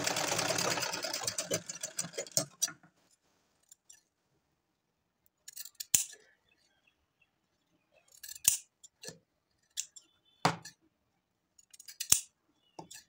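Sewing machine stitching at speed, stopping about two seconds in. Then five or six sharp scissor snips a second or two apart, cutting the chain-stitched fabric pieces apart.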